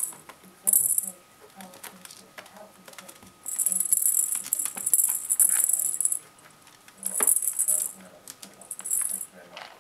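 A kitten's rattle toy shaken in irregular bursts as kittens bat and wrestle with it. The bursts are high and hissy: a short one just after the start, a long one of nearly three seconds in the middle, and two short ones near the end, with a few light knocks in between.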